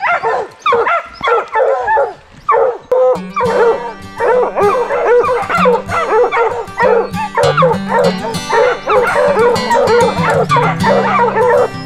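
A pack of hunting hounds barking and bawling in a steady, overlapping chop at the foot of a tree: tree barking that signals a bear is treed. Background music comes in under the baying about three seconds in.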